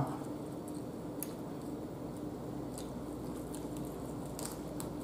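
Baked chicken being pulled apart by hand: faint soft squishes and a few small clicks over a low steady hum.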